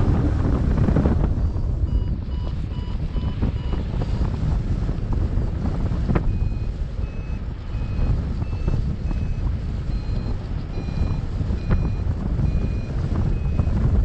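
Paragliding variometer beeping in short, evenly spaced beeps, about two to three a second, starting about two seconds in, with the pitch shifting a little from beep to beep. Beeping like this signals the glider is climbing. Wind rumbles on the microphone throughout.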